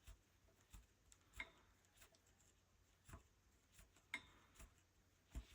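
Faint, irregular soft clicks and pops of a rug hook pushing through the backing cloth and pulling up loops of wool strip, about one every half second or so.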